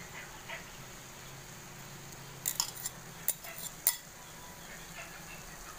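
A metal spoon clinking and scraping against a bowl and the pan while sauce is spooned onto rice: a quick cluster of sharp clinks about two and a half to four seconds in.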